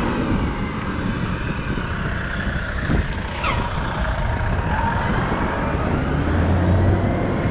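Road traffic passing a moving bicycle, with steady wind rumble on the microphone. Two short, sharp sounds come about three and a half and four seconds in.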